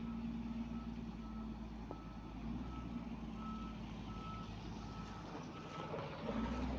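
Reversing alarm on a construction vehicle, one steady-pitched beep repeating about every 0.7 seconds, over the machine's engine running.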